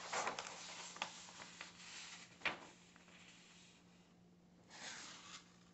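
A sheet of drawing paper rustling as it is lifted and handled, with one light tap about two and a half seconds in and a brief faint rustle near the end, over a faint steady hum.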